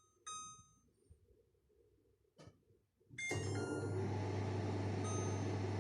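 LG convection microwave oven: a short keypad beep near the start and a click about two and a half seconds in, then the oven starts running about three seconds in with a steady low hum and fan noise, with a short beep as it starts.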